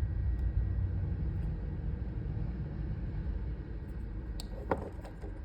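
A steady low rumble, easing off toward the end, with a couple of faint clicks near the end as wire strippers work the insulation off an electrical cable.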